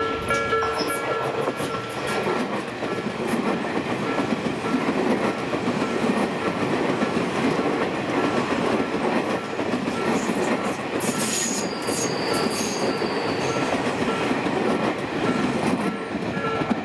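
An electric train on the Tobu Skytree Line passing through a level crossing, its wheels clattering over the rail joints, with a brief high wheel squeal about two-thirds of the way through. The crossing's pulsing electronic warning bell keeps ringing underneath.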